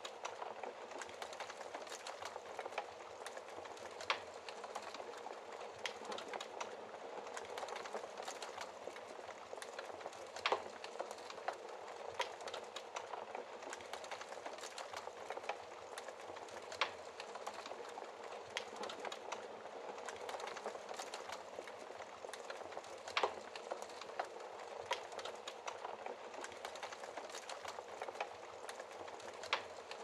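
Wood logs burning in an open fireplace: a steady hiss of flame with constant small crackles, and a sharper, louder pop about every six seconds.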